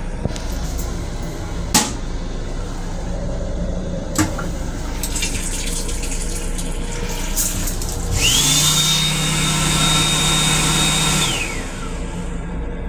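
Water from the restroom sink's sensor faucet running into the basin over a steady low hum, after two sharp clicks. About eight seconds in, a small electric motor starts with a rising whine, runs steadily for about three seconds, then winds down and stops.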